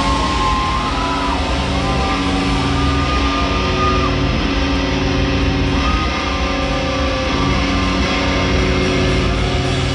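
Live heavy rock band playing through amplifiers: distorted electric guitars hold long notes with slow pitch bends over a thick, steady low end.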